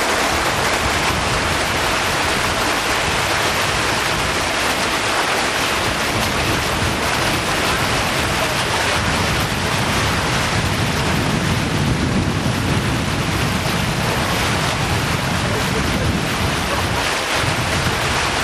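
Steady rush of wind across the microphone mixed with water splashing and hissing past the hull of a small boat under way.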